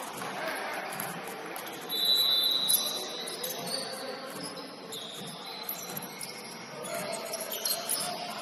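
Basketball game noise in a gym: a loud high-pitched squeal about two seconds in lasting under a second, with fainter high squeaks around five and eight seconds, over a general hall murmur.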